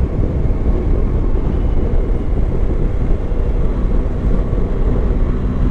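Yamaha Tracer 9 GT's 890 cc inline three-cylinder engine running at a steady cruise, under the rush of wind over a helmet-mounted camera.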